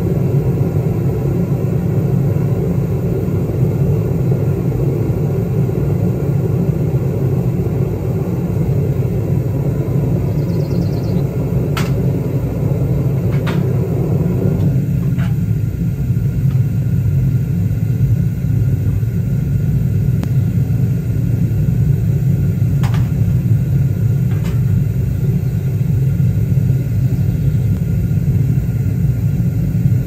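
Propane burner of a home foundry furnace running with a steady low rumble, a few faint clicks over it.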